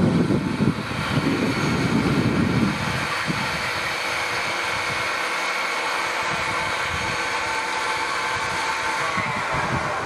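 Steady mechanical whirring with several held tones, as the greyhound-track lure drive runs along the rail ahead of the racing whippet. Louder low rumbling comes and goes in the first few seconds and again near the end.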